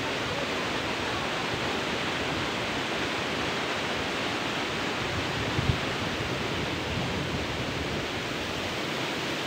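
Steady rush of water from the top of a waterfall, with a brief low thump a little past halfway through.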